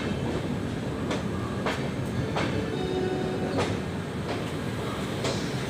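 LHB passenger coach running along the track, heard from its open doorway: a steady rumble of wheels on rail with irregular clacks as the wheels cross rail joints and points. A faint wheel squeal comes in briefly about three seconds in.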